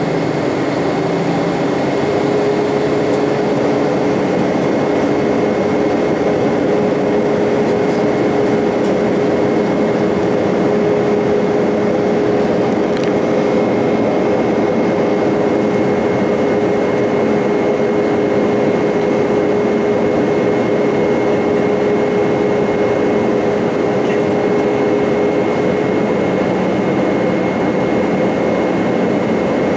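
Airbus A318 cabin noise on approach: the steady roar of the jet engines and rushing air heard from a seat by the wing, with a constant hum and a fainter high whine running through it.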